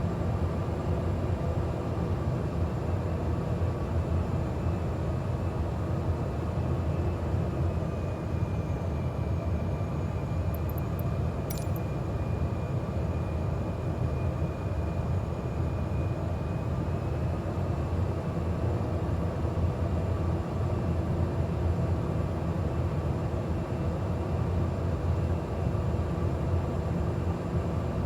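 Steady drone of a Cessna 208 Grand Caravan's single Pratt & Whitney PT6A turboprop engine and propeller, heard from inside the cockpit on approach to landing. A single brief click comes about halfway through.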